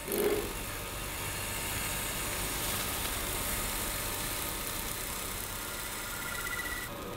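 Wood lathe running while a gouge cuts a spinning block of blue cast resin, a steady hissing cut that peels off long ribbons of shavings. A short, louder knock comes just after the start, and the sound changes abruptly near the end.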